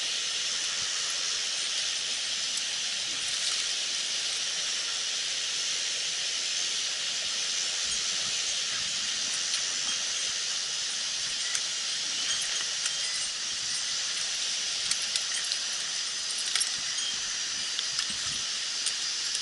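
Mountain stream water rushing steadily, an even hiss. A few light clicks and knocks come in the second half.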